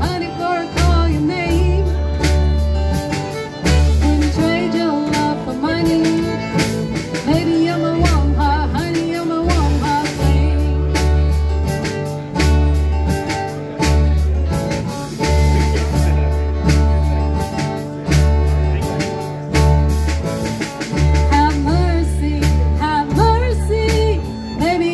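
Live band playing a song: upright bass keeping a steady, repeating bass line, fiddle bowing the melody, acoustic guitar and a drum kit.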